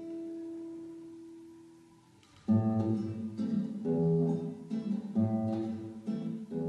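Classical guitar played solo: a chord rings and fades for about two seconds, then rhythmic picked-and-strummed chords start up and continue.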